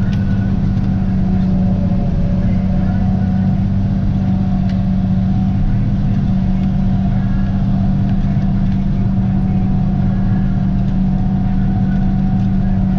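Tractor engine running steadily under load, driving a PTO-powered pull-type forage harvester as it chops standing corn: a constant, unbroken drone.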